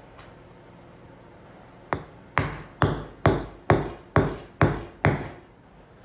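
A steel lathe drive centre is hammered into the end grain of a log: eight sharp, briefly ringing strikes at about two a second, the first one lighter.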